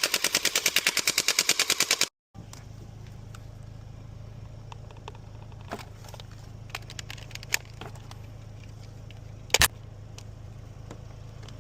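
Rapid full-auto gunfire, about a dozen shots a second, for two seconds, then cut off abruptly. After that a steady low hum with scattered light clicks and one sharp crack near the end.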